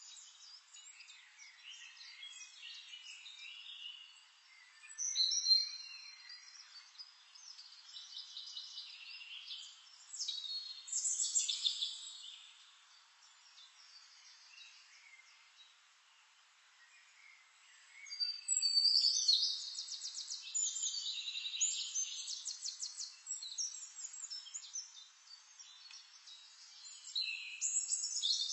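Wild birds singing and chirping: short high calls and fast trills that come and go, louder around 5 and 11 seconds in, quieter for a few seconds after that, then busy again from about 19 seconds on.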